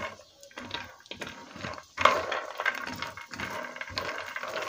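Almonds rattling and scraping against a heavy frying pan as a spatula stirs them while they roast in a little vegetable oil, with a louder clatter about two seconds in.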